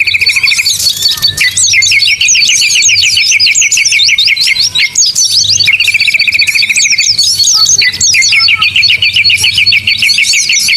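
A dense chorus of many small songbirds chirping and calling over one another. A fast, even, high trill keeps returning in runs a second or more long through the chatter.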